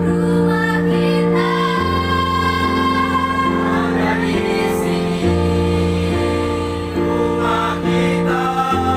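Mixed choir of girls and boys singing in parts, holding sustained chords that move to a new chord about every second.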